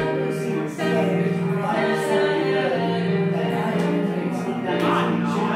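A recorded song with singing over instrumental accompaniment, played back on a TV.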